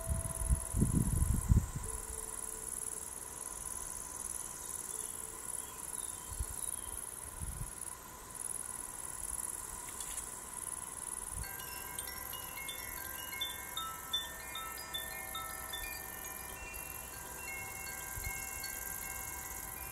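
Crickets chirping steadily in the background. About halfway through, a pair of cylindrical hand-held chimes starts to tinkle, giving many short, clear overlapping tones. A brief low rumble comes at the start.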